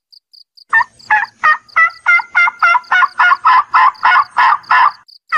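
Domestic turkey calling a fast run of short yelps, about three or four a second. The run begins about a second in and stops just before the end.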